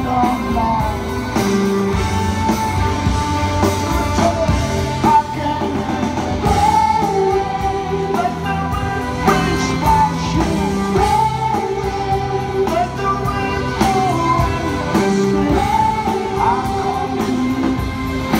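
Live rock band in concert: a lead vocal holds long notes that bend in pitch over drums, guitar and keyboards, heard from far back in the audience.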